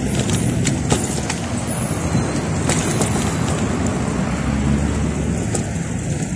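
Steady road traffic noise from a busy city avenue, with a few scattered sharp knocks.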